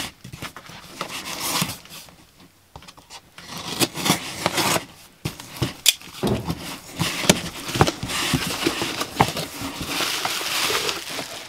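Utility knife slitting the packing tape on a cardboard box, then the cardboard flaps being pulled open and bubble wrap crinkling and rustling, with scattered sharp clicks and scrapes.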